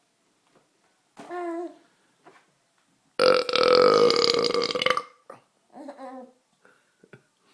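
A man's long, loud burp, forced up after drinking soda, lasting about two seconds from about three seconds in. Short voice sounds come shortly before and after it.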